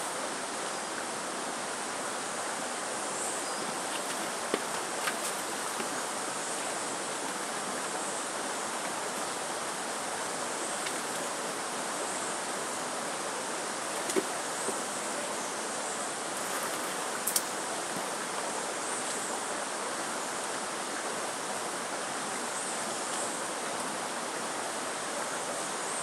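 Steady rushing of running water, with a few faint clicks as the ginger plants are handled.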